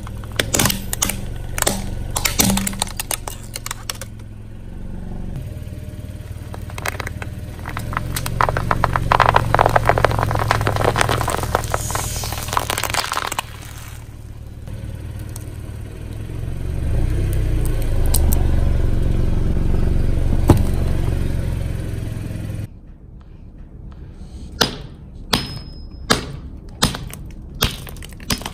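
Car tyre rolling slowly over objects on concrete and crushing them: a plastic toy cracking and snapping, then long stretches of dense crackling and a low tyre rumble as a crinkly silver sheet is pressed flat. It cuts off abruptly near the end, and a run of sharp clicks follows, about one every half second.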